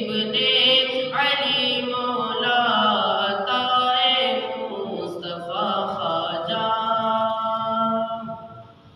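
A boy singing a naat unaccompanied, one voice holding long, wavering notes; the phrase fades out near the end.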